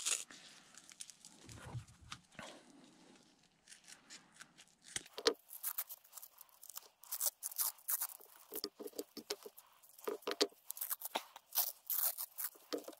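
Black hook-and-loop (Velcro) strap being handled and pulled apart by gloved hands: scattered faint crackles, sparse at first and coming more often from about five seconds in.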